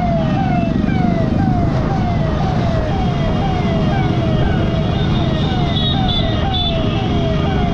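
Electronic police siren sounding a fast repeating falling wail, about three falls a second, over the steady rumble of slow scooter and motorcycle traffic. A few short high beeps sound about six seconds in.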